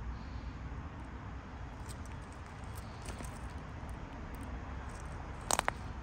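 Footsteps on paving stones strewn with acorns and dry oak leaves, over a steady low outdoor rumble. Two sharp cracks close together near the end.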